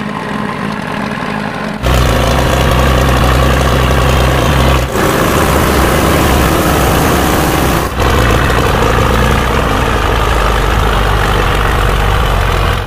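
Belarus tractor diesel engine running, at first moderately loud, then about two seconds in much louder and close, as beside the open engine bay of a Belarus 805. The steady running is broken by two brief dips about five and eight seconds in.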